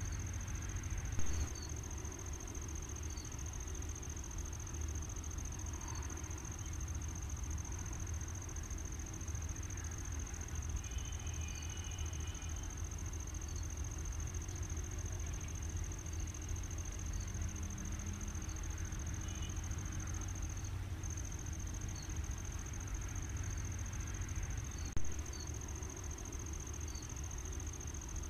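Rural outdoor ambience: a steady high-pitched insect trill over a constant low rumble, with faint short chirps every second or two. Two brief louder knocks stand out, one about a second in and one near the end.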